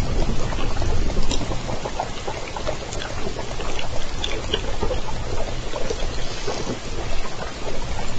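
Underwater hydrophone audio of southern resident killer whales: steady water hiss and low rumble with many scattered sharp clicks, the orcas' echolocation clicks.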